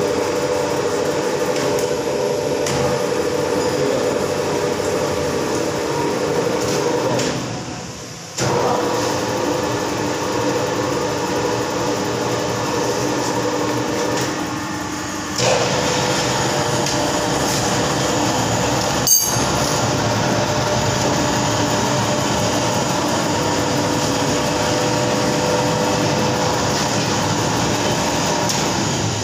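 Empty spiral dough mixer running, its motor and drive giving a steady hum. The sound sags twice, about 7 and 14 seconds in, and comes back suddenly each time as the machine is switched. There is one sharp click about 19 seconds in.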